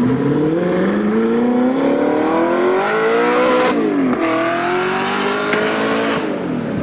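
An engine accelerating hard through the gears: its pitch climbs steadily, drops sharply just under four seconds in as at a gear change, then climbs again and drops near the end.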